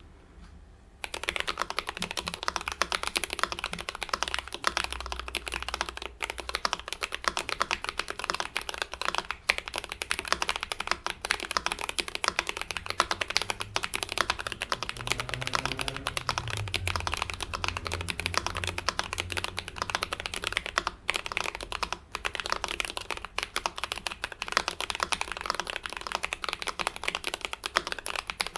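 Fast, continuous typing on a mechanical keyboard with factory-lubed Akko Jelly Black linear switches and Cherry-profile keycaps, in a case damped with PE foam, tape and polyfill. The typing starts about a second in.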